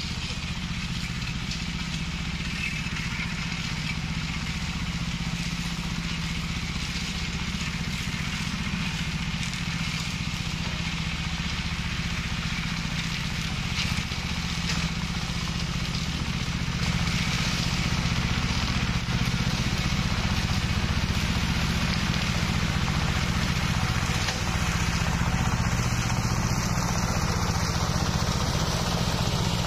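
Engine of a rubber-tracked brush mower running steadily at work, getting somewhat louder about two-thirds of the way through.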